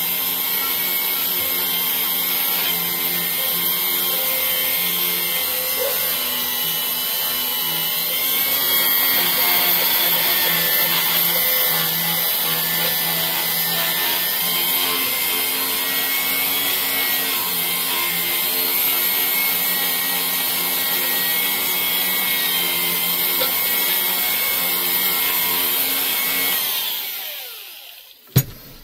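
Small DeWalt die grinder spinning a blue polishing buff against the aluminium combustion chamber of a cylinder head, with a steady high whine and a rubbing hiss as the chamber is polished to a high shine. Near the end the grinder is switched off and winds down, falling in pitch, followed by a sharp click.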